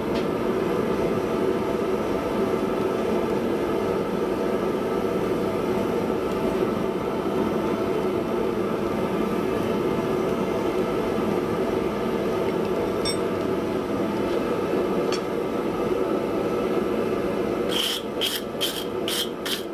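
A forge running with a steady rushing noise. About 18 s in, five quick hammer blows on hot iron on the anvil.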